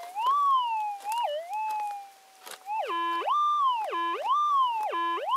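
Metal detector audio signal as the coil is swept over the dug hole, responding to a target: a wavering tone, then from about three seconds in three rising-and-falling whoops. It is a squawky sort of sound.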